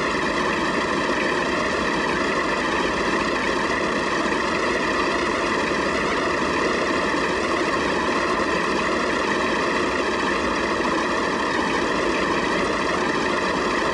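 Vintage tractor engines idling together, a steady, unchanging din with no rise or fall.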